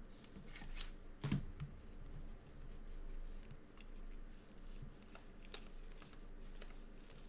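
Gloved hands handling trading cards: a card slid into a plastic sleeve, then cards flipped through one by one, giving soft rustling and light clicks, with a sharper snap about a second in.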